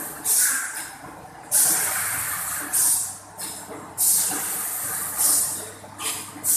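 Cooking-oil jerrycan filling and capping machine working, with repeated hisses of air, about one every second, each starting sharply and tailing off, over a faint low hum.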